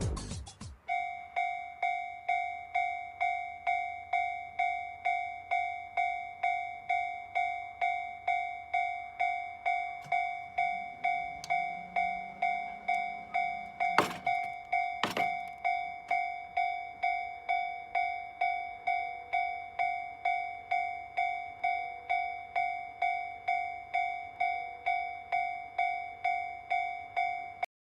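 Japanese railroad-crossing alarm ringing its 'kan-kan' warning, a steady run of bell tones at about two strokes a second. Around the middle there is a brief low hum and two sharp clicks, and the alarm cuts off suddenly near the end.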